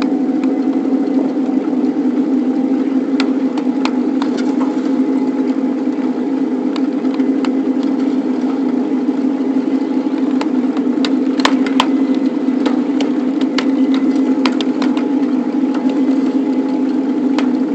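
Miniature 7.5-inch gauge locomotive running along backyard track, heard from on board: a steady mechanical drone with scattered sharp clicks and knocks throughout.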